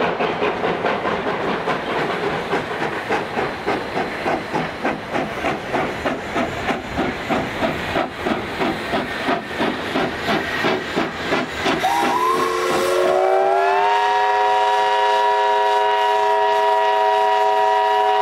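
Narrow-gauge steam locomotive No. 40 working uphill, its exhaust chuffing about three beats a second. About twelve seconds in, its chime steam whistle opens with a rising pitch and settles into one long, steady chord.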